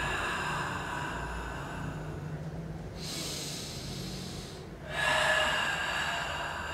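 A man's long, emphatic breaths out through the mouth while doing abdominal crunches: one breath out ends about three seconds in, then after a short quiet pause for the breath in, another starts near the five-second mark. It is paced breathing: in for two counts, out for four, with the exhale used to contract the abdominals and lift the shoulders.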